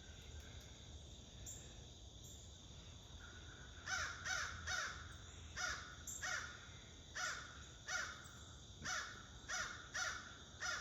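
Crows cawing in a quick run of harsh, repeated caws that start about four seconds in, about one to two a second. The crows are squawking after driving off a hawk.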